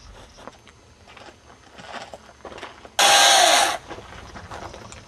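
Faint knocks and scrapes of hand-carving wood. About three seconds in, a gasoline chainsaw revs loudly for under a second, its engine note falling as it drops back.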